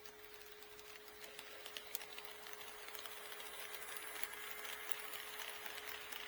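HO scale model train rolling along the track and growing steadily louder as it approaches, with a quick run of small clicks from the wheels over the rail joints and a steady hum underneath.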